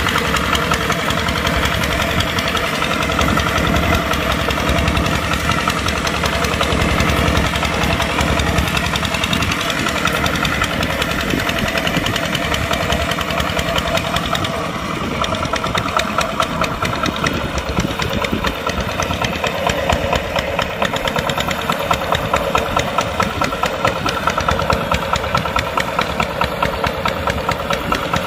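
Kubota tractor's diesel engine running while plowing. About halfway through the sound changes and takes on a regular pulsing beat.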